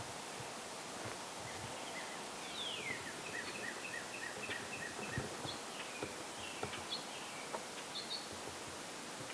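Woodland ambience with a small songbird singing: a quick falling note, then a run of short repeated chirps, then a few scattered higher chirps, over a steady hiss with a few faint clicks.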